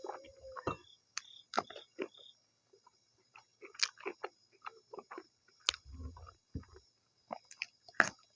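Close-miked mouth sounds of a person eating maize dhido with stinging-nettle curry: irregular wet chewing, smacking and small clicks.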